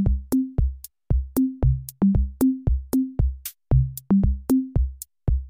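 Upbeat electronic background music: a drum-machine beat of short, evenly spaced hits, about three a second, each paired with a short low bass note under a bouncing two-note figure.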